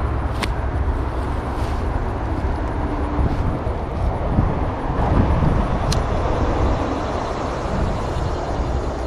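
Steady rumbling noise of wind and highway traffic, with two sharp clicks, one about half a second in and one about six seconds in.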